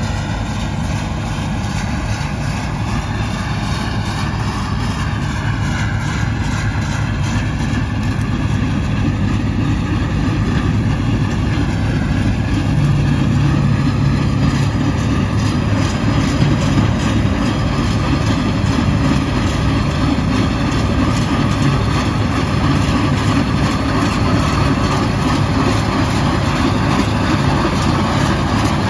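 Bizon Z056 Super combine's SW-400 six-cylinder diesel engine running steadily under harvesting load, getting gradually louder as the combine comes closer.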